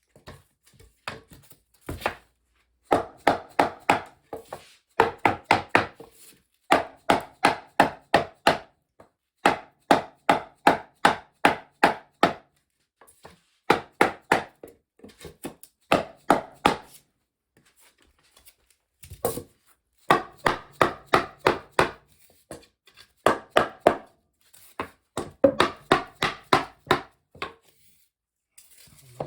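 Rapid wooden knocking, about five strikes a second in bursts of one to two seconds with short pauses between: foam-backed compressed-wood sub-floor tiles being knocked into place against each other.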